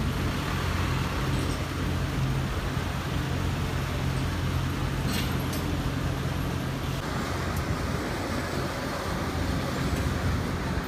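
Steady low engine drone on a roll-on/roll-off ferry's steel car deck, with a couple of light clanks about five seconds in.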